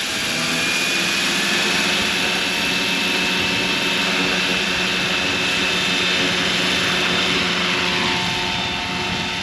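Roban 600-size Hughes MD500 scale RC helicopter's rotor head spinning up to a normal head speed of about 1400 RPM. A high whine rises a little in pitch over the first couple of seconds, then holds steady over the rotor hum, with gusty wind on the microphone. It is being tested for a body-shaking wobble.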